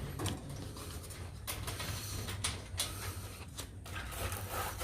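Hand tool working the 8 mm bolts at the bottom of a Speed Queen dryer's cabinet: a few sharp, irregular metallic clicks over a low steady hum.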